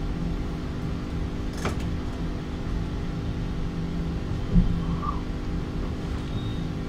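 Room tone: a steady low hum, with a faint click about a second and a half in and a soft thump a little after the middle.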